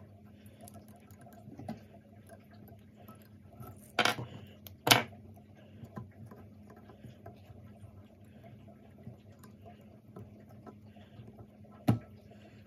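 Small handling sounds at a fly-tying vise: faint rustling as fingers work the fly, with three sharp clicks, two about a second apart and one near the end, over a low steady hum.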